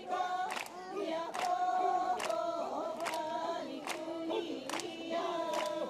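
A group of voices chanting an Ainu ceremonial song in held, overlapping tones, with a sharp beat keeping time about every 0.8 seconds.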